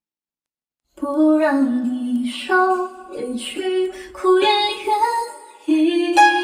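After about a second of silence, a woman starts singing the opening of a pop song, almost unaccompanied; a plucked-string backing comes in just at the end.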